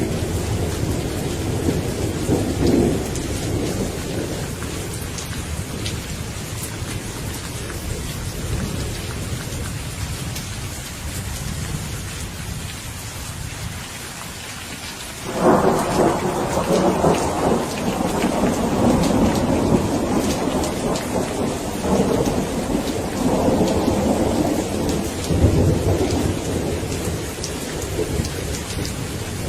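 Steady rain falling through a thunderstorm. A rumble of thunder dies away in the first few seconds, then about halfway through a sudden loud thunderclap breaks into a long rolling rumble that swells again several times before the end.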